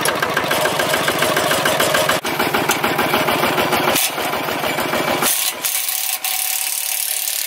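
Singto Thong STT155 small tractor's single-cylinder diesel engine running with a steady, even beat. About five seconds in the engine sound cuts off, leaving a steady high hiss.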